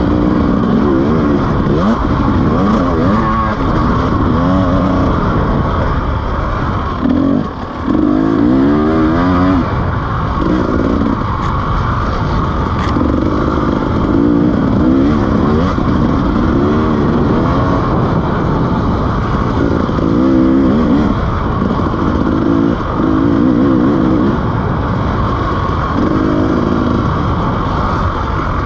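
KTM 300 two-stroke enduro motorcycle engine being ridden off-road, revving up and easing off again and again with the throttle. The level dips briefly about seven seconds in.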